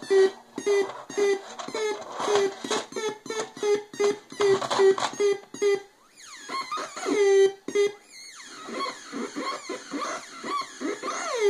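Solar-powered breadboard mini synthesizer making electronic noise: a steady pulse of short bleeps with clicks, about three a second. About six seconds in it breaks off into swooping, warbling pitch glides before the bleeping pulse comes back at the end.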